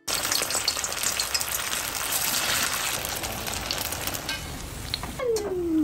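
Chicken-stuffed bread rolls deep-frying in hot oil in a steel wok, the oil sizzling and bubbling steadily while being stirred with a slotted spatula. The sizzle eases after about four seconds, and a brief falling hum comes near the end.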